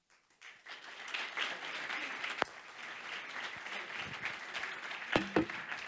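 Small audience applauding: a dense patter of hand claps that starts about half a second in and keeps going, with a few sharper claps close to the microphone.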